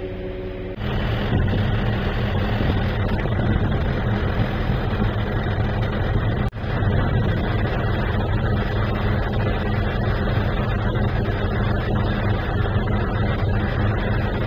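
Truck-mounted crane's engine running steadily close by, a dense low rumble. It starts abruptly about a second in and cuts out for an instant about halfway through.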